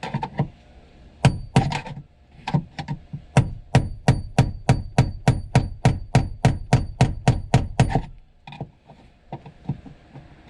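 Hammer blows driving a tool against the fuel pump locking ring of a 2003 Audi Allroad to turn it loose: two or three strikes about a second in, then a quick run of about seventeen strikes at roughly four a second, each with a high ring, and a few lighter taps near the end. The ring is hard to shift.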